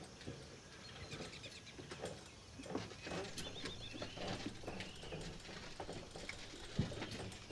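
A wheelchair being pushed along, with footsteps: soft, irregular taps, knocks and creaks. A few faint bird chirps come through about three to four and a half seconds in.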